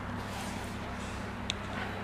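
Steady low room hum, with a single short, sharp click about one and a half seconds in.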